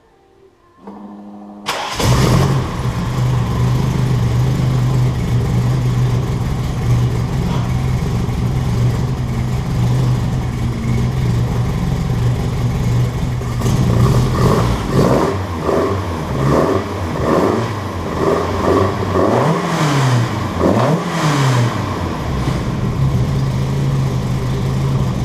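Datsun 510's swapped-in KA24DE 2.4-litre four-cylinder engine cold-starting: the starter cranks briefly and the engine catches, then idles steadily. Past the halfway mark it is revved in a series of short throttle blips, the pitch rising and falling, before it settles back to a steady idle.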